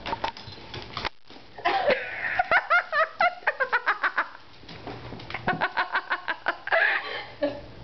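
A person laughing in two giggling fits of quick repeated pulses, the second starting about halfway through.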